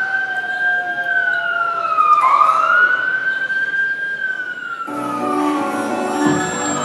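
A wailing siren making two slow sweeps, each rising, holding high and then falling. Music with a beat comes back in about five seconds in, under the end of the second sweep.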